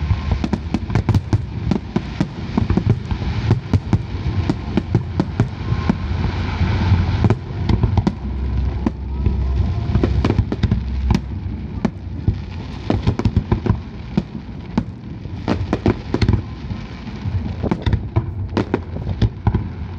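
Fireworks display going off: a rapid, continuous string of bangs and crackles over a low rumble of shell bursts, busiest midway through.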